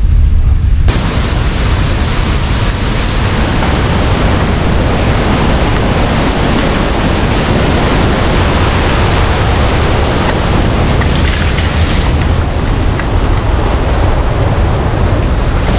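Kadiyanlena waterfall rushing: a steady, even roar of falling water. It cuts in about a second in, after a moment of low rumble inside the car.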